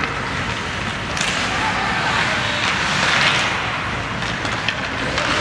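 Ice hockey rink ambience during play: continuous noise of play on the ice with background spectators' voices, one sharp clack about a second in and a swell of scraping hiss about three seconds in.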